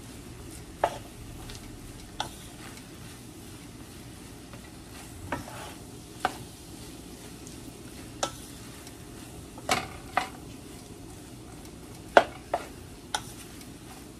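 Fried rice being stir-fried with a wooden spatula in a large nonstick pan: a steady low sizzle, broken by about ten sharp knocks of the spatula against the pan at irregular intervals, the loudest near the end.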